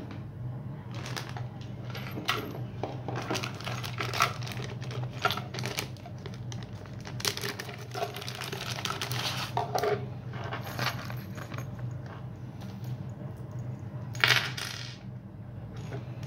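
Clear plastic bag crinkling as a small plastic tank is handled and unpacked, with small metal fittings clicking onto a wooden tabletop. A steady low hum runs underneath.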